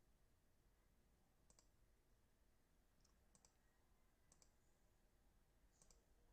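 Near silence with faint computer mouse clicks, several spread a second or so apart and some in quick pairs, as a randomiser is clicked through repeatedly.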